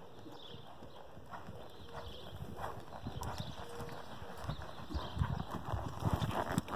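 Hoofbeats of a ridden grey horse on an arena's sand surface, a run of soft, uneven thuds that grow louder as the horse comes closer.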